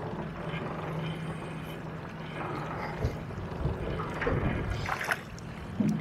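Small boat on choppy water: water slapping and washing against the hull with wind, over a steady low hum that fades out near the end, with a few light knocks of handling.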